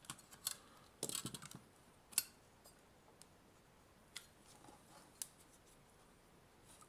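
Scattered sharp clicks and a quick run of small clicks about a second in, from a tool working at the sealed plastic case of a Nintendo Switch AC adapter to crack it open.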